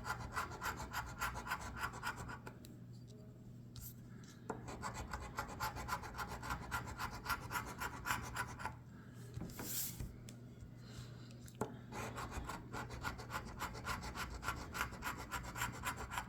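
Scratch-off lottery ticket being scratched: quick, rhythmic scraping strokes in three spells with short pauses between them, and a brief hiss about two-thirds of the way through.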